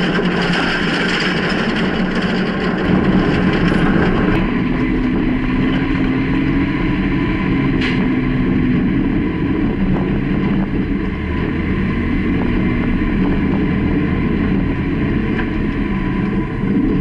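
Freightliner plow truck's diesel engine running steadily as the truck drives. For the first four seconds or so a louder hiss lies over it, then the sound turns to a steadier drone heard inside the cab, with one sharp click near the middle.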